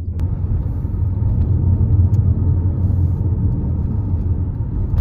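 Steady low rumble of wind buffeting a phone's microphone, with a single sharp click about a fifth of a second in.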